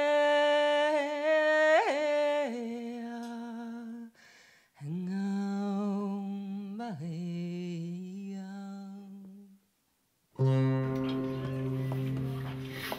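A voice humming long held notes without words, in two phrases with a short pause between, sliding between pitches. After a brief silence near the end, different music starts on a steady low note.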